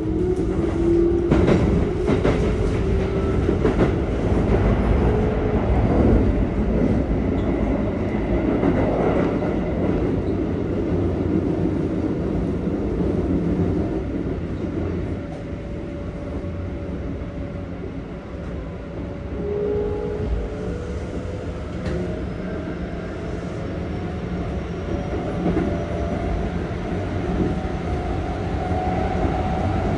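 Keikyu 1500-series train heard from inside the car: the Toyo GTO-VVVF inverter and traction motors whine in rising tones as the train accelerates, over a steady rumble and clack of wheels on rail. The whine fades in the middle, where it is a little quieter, and rises again near the end.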